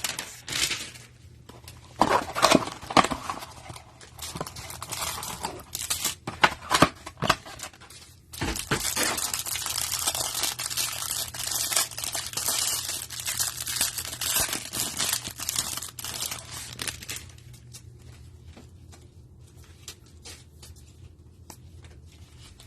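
Tearing open a 2021 Panini Prizm Football hanger box, cardboard and plastic wrap ripping and crinkling. Irregular rips come first, then a long continuous crinkling rustle from about eight seconds in, easing to quieter handling of the cards near the end.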